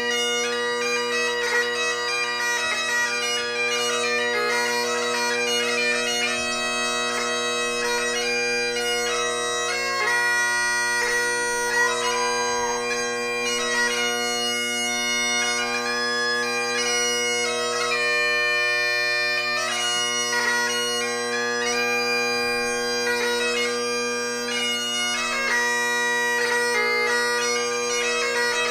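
Great Highland bagpipe played solo: the drones sound a steady unchanging tone while the chanter plays a melody of changing notes above them.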